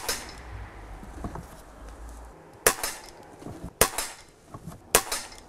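PP700 SA PCP air pistol firing four shots, each a sharp crack. The last three come about a second apart.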